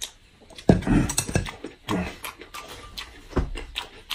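Close-miked eating sounds at a table: chewing and mouth sounds, with light clicks of chopsticks and a spoon against bowls and a glass. Several louder, deeper mouth sounds come about a second in and again near the end.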